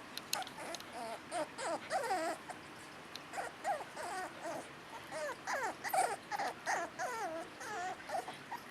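West Highland white terrier puppy whining and whimpering in a string of short, high cries that waver up and down in pitch, with light sharp clicks in between.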